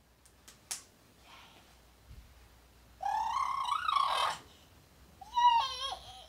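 A toddler's high-pitched wordless vocalizing: one sound about three seconds in lasting just over a second, and a shorter one near the end that drops in pitch.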